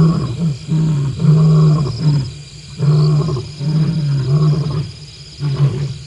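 Lion roaring: a run of deep grunts, a little under two a second, growing fainter near the end.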